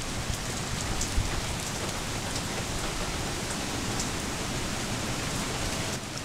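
Steady rain falling, with scattered sharp ticks of nearby drops and one soft thump about a second in.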